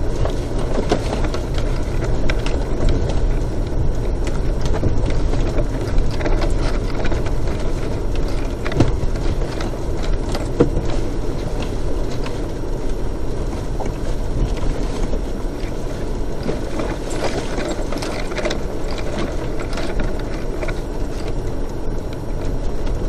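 Inside the cabin of a four-wheel-drive vehicle crawling along a rough dirt track: a steady low rumble of engine and tyres, with constant small rattles and knocks from the body jolting over the ruts.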